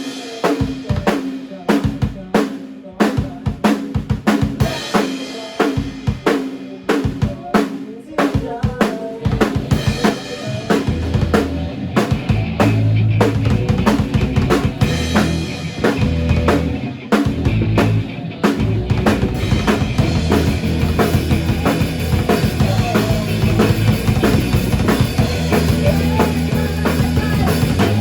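Band music with no singing: a drum kit playing a steady, busy beat over a sustained pitched part, with deep bass notes coming in about eleven seconds in and carrying on.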